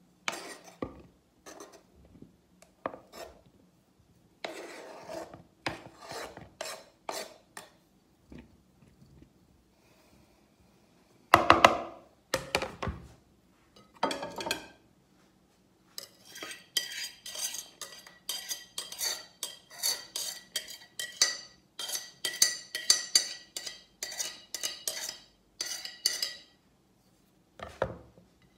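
Kitchen utensils working food: a spatula scraping chopped food off a plate and cutting board into a plastic bowl, with clatters and one loud knock a little before the middle. This is followed by about ten seconds of quick, regular tapping strokes, about three a second.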